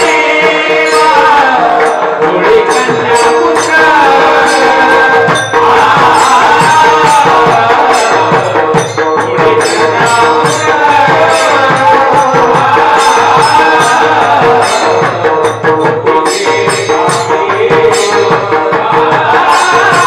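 Marathi kirtan devotional singing, a melismatic voice line over a steady held drone, with mridang drum strokes coming in about three seconds in and keeping a regular beat.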